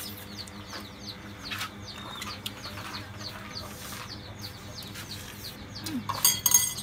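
Birds chirping in a quick string of short falling chirps, with a loud harsh bird call about six seconds in.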